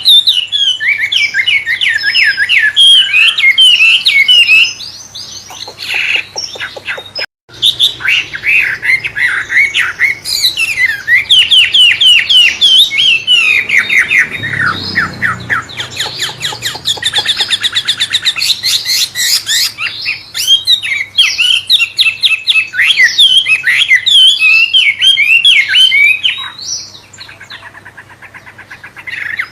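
A wambe songbird singing a fast, varied song of rapid chirps, trills and whistled notes in the style of a white-rumped shama (murai). The song breaks off briefly about seven seconds in and goes quieter near the end.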